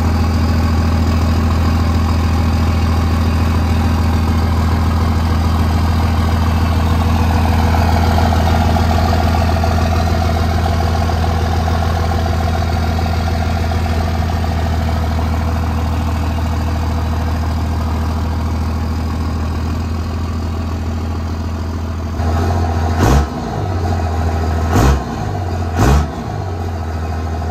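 24-valve Cummins diesel idling steadily through its newly fitted exhaust tip. Near the end come three quick throttle blips.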